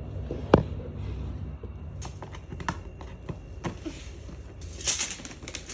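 A wrapped gift being handled and unwrapped: scattered taps and knocks, the loudest about half a second in, then a short burst of paper rustling and tearing near the end.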